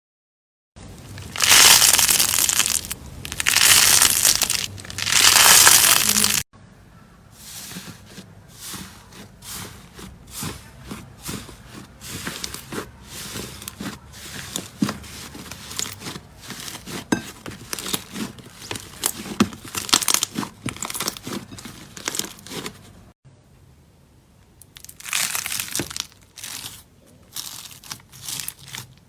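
Hands working slime in three separate clips. First come three loud swells of crunching and crinkling, then a long stretch of quieter rapid clicks and pops, and near the end more loud crunching swells.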